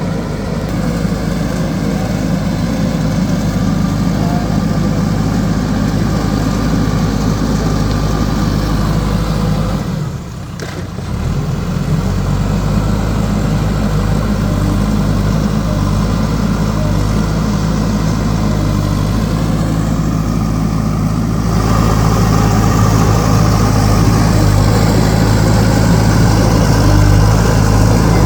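JCB backhoe loader's diesel engine running steadily, with a brief drop about ten seconds in and a louder, brighter sound from about two-thirds of the way through.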